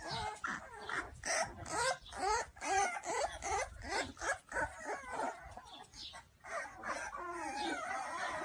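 Pit bull-type puppies whimpering and yelping, many short high cries one after another and overlapping.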